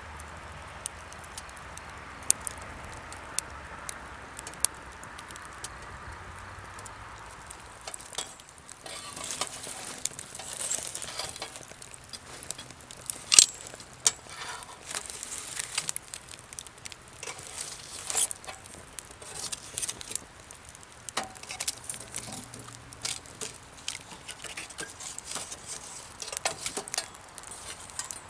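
Cooking handled by hand: a steady soft hiss for the first several seconds, then many scattered clicks and clinks of utensils and dishes being handled.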